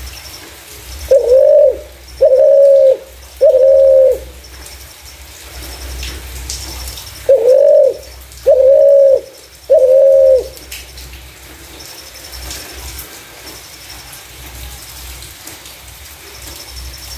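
Spotted dove (terkukur) cooing: two phrases of three loud, low coos each, about six seconds apart, with quiet between.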